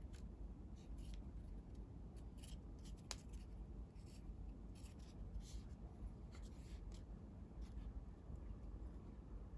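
Coloured origami paper being handled and folded by hand: faint, irregular rustles and short crisp crinkles, with one sharper click about three seconds in.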